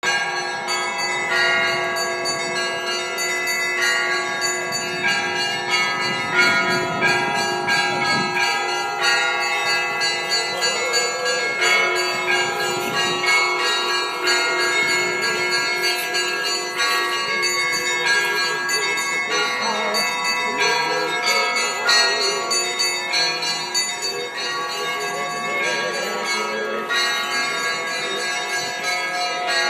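Russian Orthodox church bells ringing a festive peal for an Easter-week cross procession: many bells of different pitches struck together and over and over, their tones overlapping and ringing on without a break.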